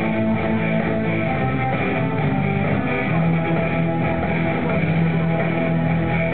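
Background music led by guitar, playing steadily without a break.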